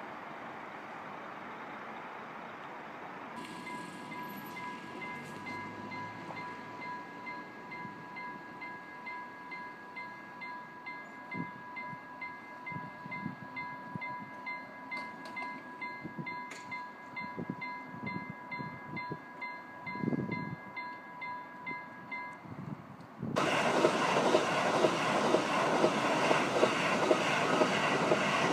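Level crossing warning bell ringing in a steady, even pulsing pattern, then stopping. About a second later an electric commuter train passes at speed, loud, with rumble and a rapid clatter of wheels over the rails.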